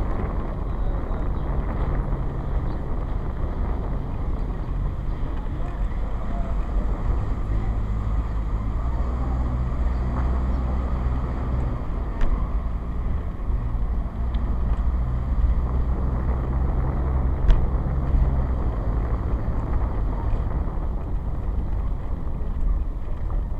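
Vehicle engine running as it drives along a road, a low steady hum that shifts in pitch a few times, with road and wind noise and a couple of sharp knocks from bumps.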